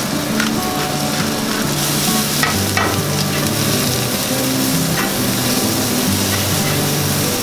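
Shiitake mushrooms and sugar snap peas sizzling in sesame oil in a nonstick frying pan, stirred with a plastic spatula, with a few light clicks of the spatula against the pan.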